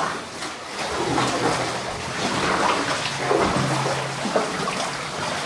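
Kayak paddles splashing and water trickling in a narrow rock tunnel, the sound echoing off the walls.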